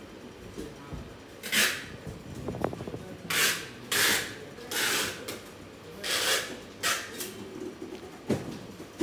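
Short rubbing or rustling noises, about half a dozen at irregular spacing, each roughly half a second long.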